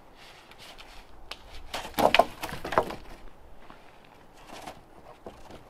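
Footsteps on snow and a long dead branch being carried and set down on the ground, with irregular knocks and scrapes. The loudest cluster comes about two seconds in and lasts roughly a second.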